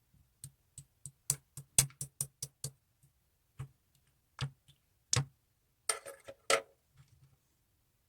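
Slime being pressed and poked by fingers, giving sharp clicking pops. About a dozen come quickly one after another in the first three seconds, then a few single ones, and two longer crackling squishes come around six seconds in.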